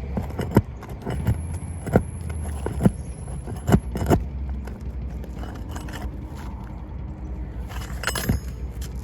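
Metal roofing tools working nails out of asphalt shingles: a series of sharp metallic taps and clinks, irregularly spaced through the first four seconds, with a short cluster more near the end.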